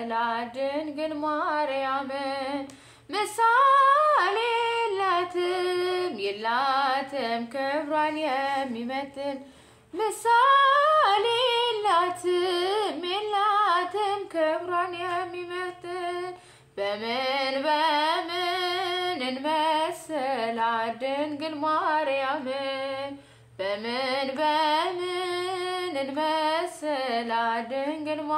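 A woman singing an Ethiopian Orthodox hymn (mezmur) in Amharic, unaccompanied. She sings in long phrases of held, gliding notes, with four short breaks for breath.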